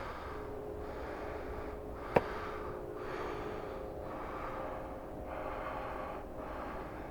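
Close breathing near the microphone, swelling and fading about once a second, over a steady low hum. A single sharp click a little over two seconds in.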